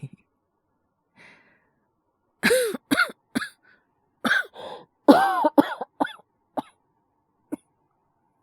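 A man's voice coughing in a fit of short, harsh coughs in several bouts, starting about two and a half seconds in after a faint breath, acted as the hacking cough of someone with a cold.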